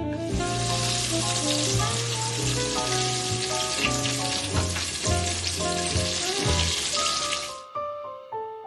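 Chicken deep-frying in hot grease, a steady loud sizzle that cuts off suddenly near the end, with saxophone jazz playing underneath.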